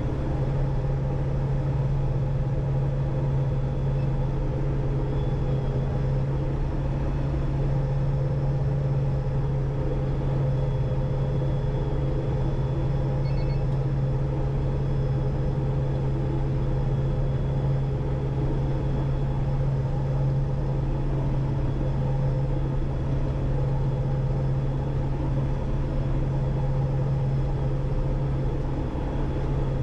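Combine harvester running steadily while cutting barley: an even machine drone with a strong low hum and a few fainter steady tones above it.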